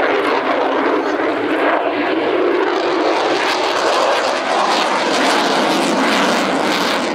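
Jet noise from an F-35B Lightning II's F135 turbofan as the jet flies a tight display turn: a loud, steady rushing roar. From about four seconds in, a crackle grows in the upper part of the sound.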